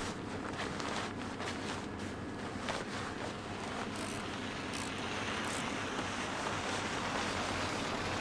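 Steady rushing outdoor wind noise, with a few faint knocks in the first few seconds.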